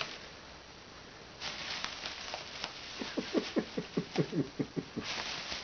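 Thin plastic shopping bag rustling and crinkling as a cat struggles inside it. About three seconds in comes a quick run of about a dozen short, falling squeaks, roughly six a second.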